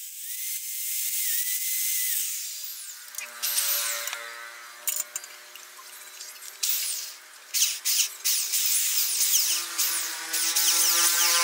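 Small Bosch electric drill running, boring holes into the end of a bamboo rod section, its motor giving a steady whine.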